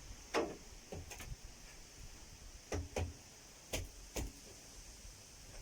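Short sharp knocks and clicks, mostly in close pairs, from work on the stove's metal chimney pipe.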